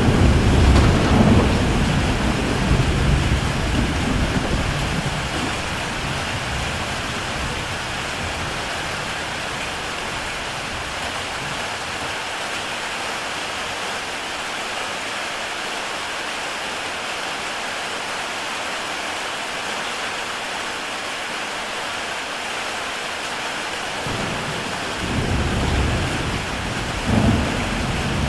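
Heavy rain falling steadily on a tile roof, with deep rolls of thunder rumbling over the first few seconds and again near the end.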